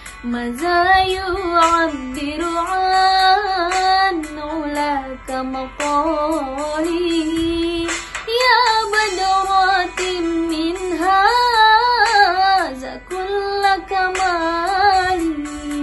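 A young woman singing a sholawat (Islamic devotional song) solo, in long ornamented phrases whose pitch glides and wavers, with short breaths between them.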